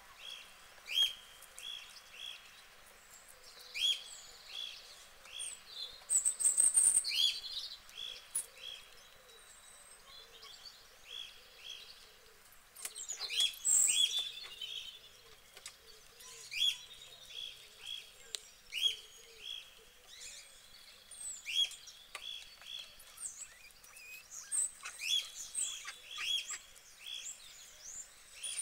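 Small birds chirping in repeated quick runs of four or five short notes, with some higher slurred calls, and a couple of louder noisy crunching or rustling bursts.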